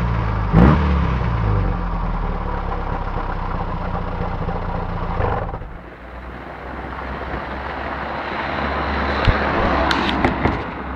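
Fiat Cinquecento 903's four-cylinder engine through an aftermarket exhaust (4-2-1 Abarth headers, straight centre pipe, twin-tip rear silencer), given a short blip of throttle about half a second in, then running steadily before dropping back to idle around halfway. A few sharp knocks near the end.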